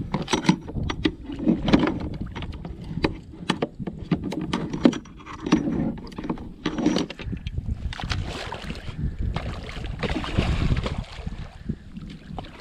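Repeated clicks and knocks of gear being handled against a plastic fishing kayak's hull and side tray, over wind rumble on the microphone. Later comes a longer stretch of hissing noise.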